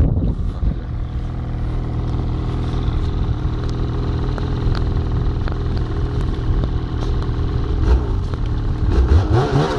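Ski-Doo snowmobile's Rotax engine running steadily at speed, with its pitch rising briefly near the end.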